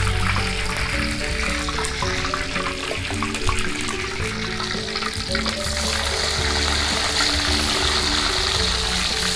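Hot cooking oil sizzling in a wok, turning to a louder, fuller sizzle a little past halfway as fresh pieces of food go into the oil to deep-fry. Background music plays throughout.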